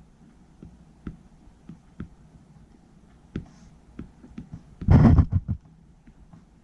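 Faint, scattered light taps of a stylus tip on a laptop touchscreen. About five seconds in there is a short, loud, breathy burst from the person.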